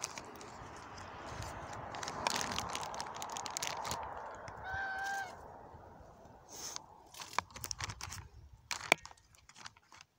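A goose honks once, a short flat call about halfway through, over a rustling noise, followed by a few sharp clicks near the end.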